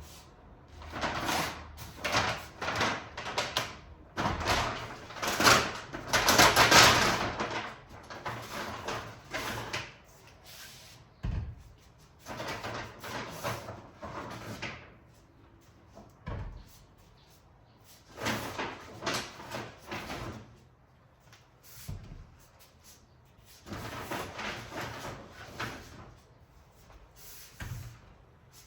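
Kitchen handling noises as groceries are packed away: irregular rustling and clattering of packaging, with a few sharp knocks of doors or drawers shutting.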